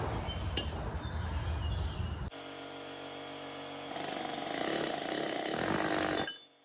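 Workshop sounds of differential work: metal parts clinking and scraping, then a sudden change to a power tool running steadily for about four seconds, louder in its last two seconds, before it cuts off suddenly.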